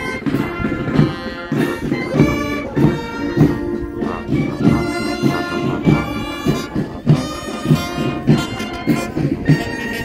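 Marching band playing: wind instruments holding sustained notes over a steady drum beat of about two beats a second.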